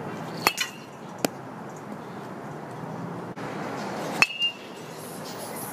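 Baseball bat hitting tossed balls twice, about four seconds apart: each contact is a sharp ping with a brief ring, followed by a softer knock. A lighter sharp click comes about a second in.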